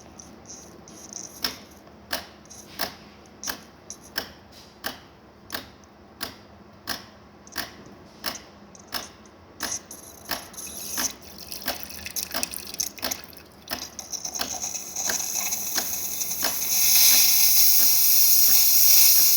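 De'Longhi Magnifica espresso machine clicking at an even pace, about three clicks every two seconds, as it works up steam. Near the end the clicks stop and the steam wand starts hissing, soon turning into a strong, loud steam hiss.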